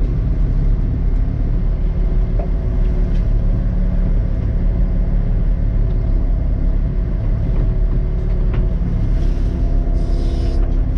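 Komatsu excavator's diesel engine running steadily, a low drone with faint tones that come and go above it, and a short hiss near the end.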